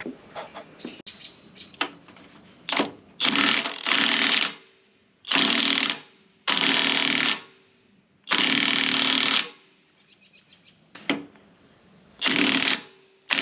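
Impact wrench hammering in about nine bursts, most about a second long, running down the bolt that draws a tapered pin into its seat to lock it.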